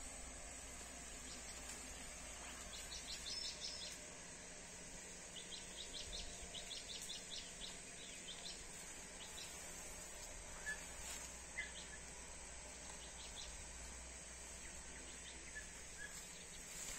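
Steady outdoor background hiss with a low rumble, and small birds chirping in quick runs of short high notes several times. Two brief clicks about a second apart a little after the middle are the loudest moments.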